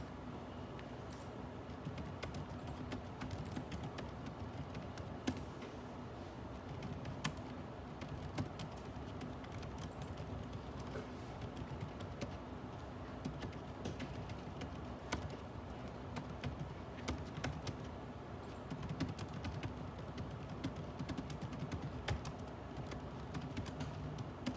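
Computer keyboard typing in irregular runs of key clicks, with occasional louder keystrokes, over a steady low room hum.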